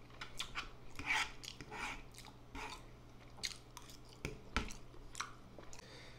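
Close-miked chewing and wet mouth sounds of a man eating instant noodles, in irregular short bursts, with two sharp knocks a little past four seconds in.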